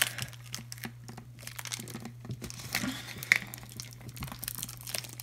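Thin clear plastic bag crinkling as it is pulled and worked out of a small cardboard blind box, in irregular crackles and small clicks.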